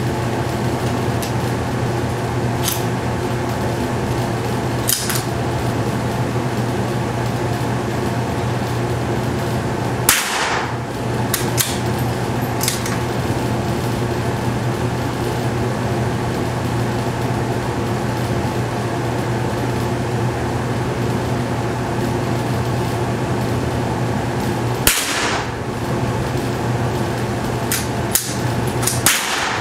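Sharp cracks of .22 LR rifle shots ring off the hard walls, the loudest about ten seconds in and near the end, with a few fainter clicks between. A steady ventilation hum runs underneath.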